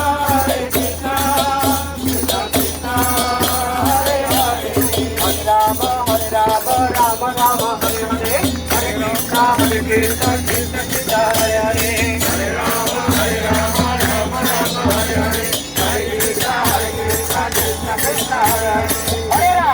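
Devotional kirtan: voices singing a chant over jingling hand percussion that keeps a steady, fast beat.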